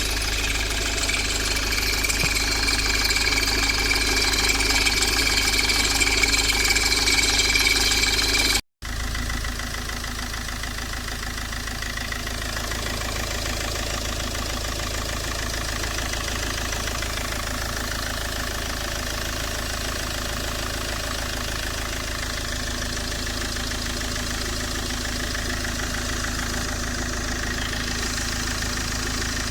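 Peugeot 807 HDi four-cylinder diesel idling with a high-pitched squeal from the alternator belt, which the owner puts down to the car standing unused for about two weeks. About nine seconds in, the sound drops out briefly. The idle then resumes with the squeal much fainter.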